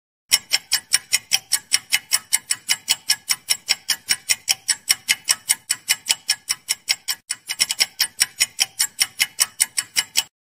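Countdown-timer sound effect of fast, even clock ticks, about five a second, with a short break and a quicker flurry of ticks a little after seven seconds in.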